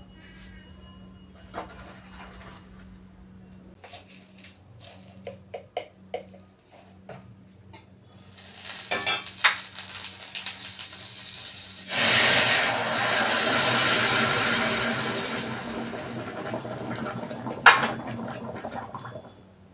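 Metal utensils clinking against pots, then about twelve seconds in a sudden loud sizzle as food goes into hot oil in a wok, slowly easing off, with one sharp clank near the end.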